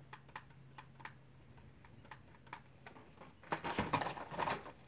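Faint clicking taps of a face-paint brush being loaded from a cake of light green face paint: quick taps at first, then only now and then. About three and a half seconds in comes a louder spell of clicking and rustling.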